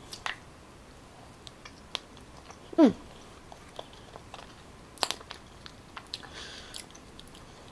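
Faint, scattered clicks and soft crackles of the skin of a boiled sweet potato being peeled off by hand, with a short falling hum from the eater about three seconds in.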